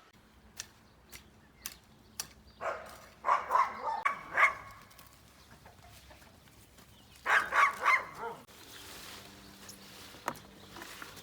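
Chickens clucking in two short bouts of rapid calls, with a few faint knocks between them.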